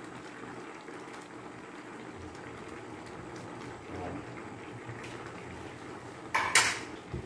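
Squid adobo simmering in a frying pan, bubbling steadily as its sauce reduces. Near the end there is a short, loud clatter of a utensil.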